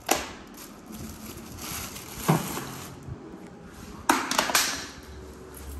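Plastic parts and accessories of a portable 12-volt tire inflator being handled: a few sharp clicks and knocks, with light rustling between them.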